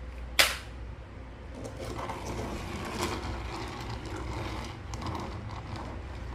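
Plastic toy cement mixer truck being unpacked and handled: one sharp click about half a second in, then a run of small plastic clicks and rattles.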